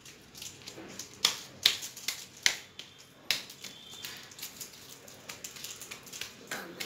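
Hands pressing and patting a stiff chart-paper cutout flat against a wall: irregular sharp taps and paper crackles, the clearest ones in the first few seconds, then smaller ticks.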